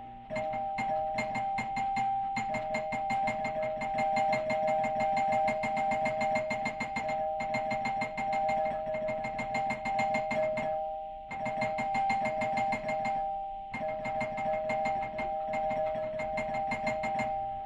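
Electronic apartment doorbell ringing without a break, a two-tone note pulsing rapidly, as the button is pressed over and over. It stops twice, briefly, about two thirds of the way through, then starts again.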